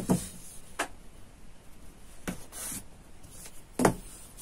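A few short knocks as a ruler is set down and shifted on a cutting table over cloth, the loudest near the end, with a brief scrape of tailor's chalk on the fabric.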